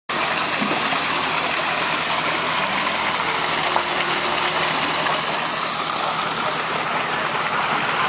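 Water cascading down an artificial rock waterfall of stacked boulders, a steady rushing and splashing.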